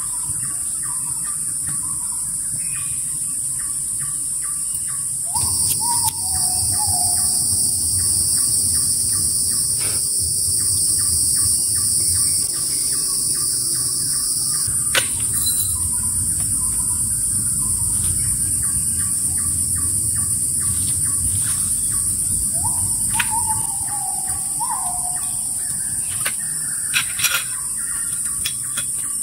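Forest ambience of insects and birds: a steady high insect drone, joined by a second, lower drone for about ten seconds, and rapid rhythmic insect ticking. A bird gives short falling calls twice, and there are a few sharp clicks near the end.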